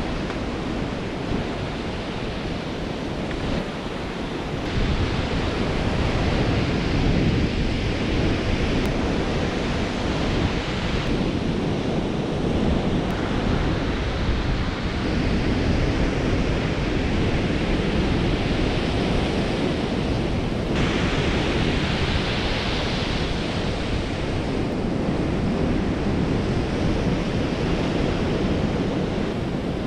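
Ocean surf breaking on a sandy beach, with wind noise on the microphone: a steady, dense wash of noise.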